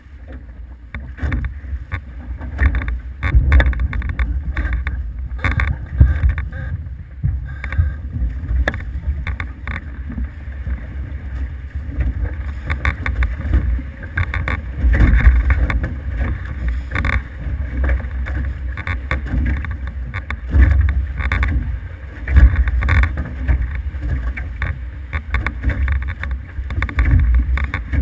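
Wind buffeting the microphone on an F18 catamaran under sail, with the rush of water past the hulls: a loud, low rumbling rush that swells and drops in irregular gusts.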